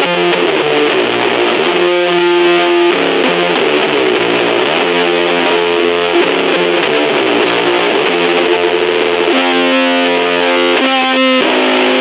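Electric guitar played through a small battery-powered Junkbox Death Metal Drone amplifier, heavily distorted, with held notes that change pitch every second or two.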